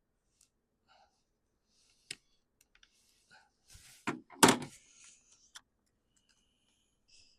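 Chainsaw parts and tools being handled on a workbench: scattered small clicks, a sharp knock about two seconds in, and a louder clatter of knocks a little past the middle.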